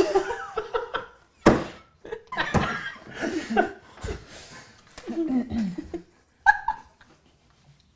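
Hearty laughter in bursts, with a sharp knock about a second and a half in.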